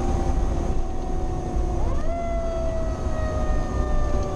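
Federal Q mechanical siren slowly winding down in pitch, spun back up once about two seconds in, then coasting down again. This plays over the steady rumble of the fire engine's motor and road noise inside the cab.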